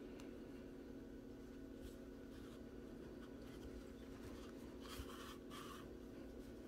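Faint scratchy rubbing of yarn being drawn through crocheted stitches with a yarn needle, with two brief louder rasps about five seconds in, over a low steady hum.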